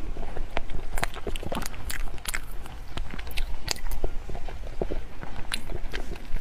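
Close-miked mouth sounds of noodles being slurped and chewed, a run of irregular short, sharp smacks and clicks.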